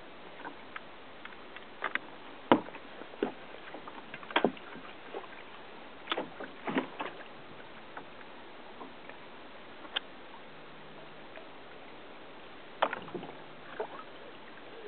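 Water slapping and splashing against a kayak's hull at irregular intervals, a dozen or so sharp splashes and knocks over a steady hiss, the loudest about two and a half seconds in.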